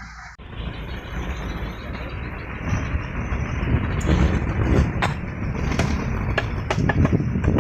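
Kolecer, a wooden wind propeller on a tall bamboo pole, spinning fast in strong wind with a loud rumbling whir over the rush of the wind. It grows louder about three seconds in.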